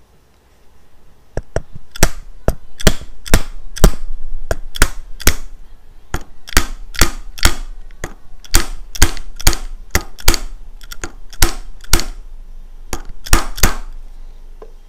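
Some thirty sharp metallic taps, about two a second, as a steel tube held as a drift is struck to drive the small upper bushing of a CrushGrind ceramic grinder mechanism into its bore in a turned metal part.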